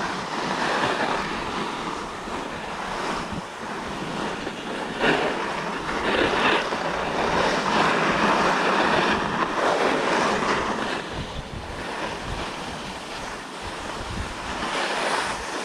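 Skis hissing and scraping over groomed snow during a downhill run, mixed with wind rushing across the microphone; the rush swells louder in the middle and eases off towards the end.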